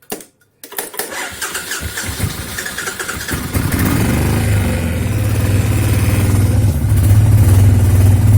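2000 Suzuki Intruder VL1500 LC's V-twin engine: a click, then the starter cranking it, catching and stumbling after about two seconds, and settling into a steady fast idle about three and a half seconds in. After ten years sitting, it runs rough.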